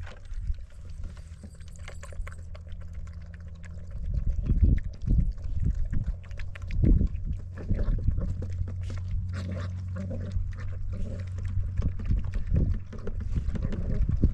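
A dog eating noisily from a plastic bowl, with irregular wet slurps and smacks that get louder about four seconds in, over a steady low hum.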